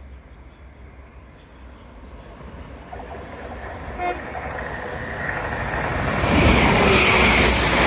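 A train approaching and passing at speed, its rail and wheel noise growing steadily louder and at its loudest near the end. A brief horn toot sounds about four seconds in.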